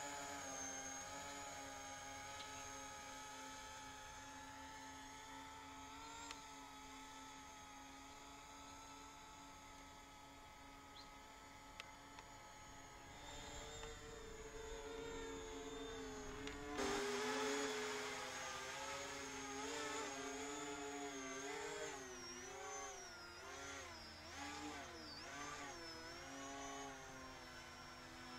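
E-flite Convergence VTOL model's electric motors and propellers whirring in flight, a steady whine that grows louder about two-thirds through, then wavers up and down in pitch as the motor speeds keep changing.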